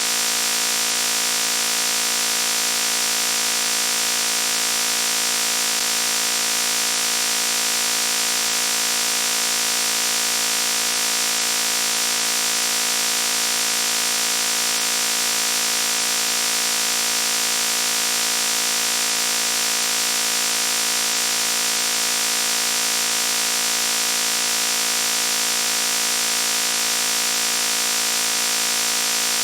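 A loud, steady buzzing noise: one unchanging pitch with many overtones, its energy strongest high up, with no change in pitch or level.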